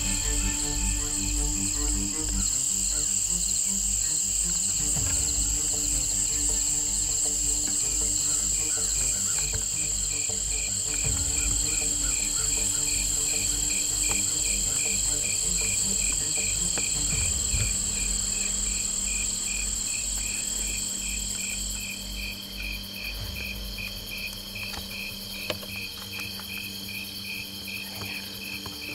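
Crickets chirping in an even, pulsing rhythm over a steady high-pitched insect drone; the drone cuts off about three-quarters of the way through. Soft background music with a low, even beat runs underneath and fades out near the end.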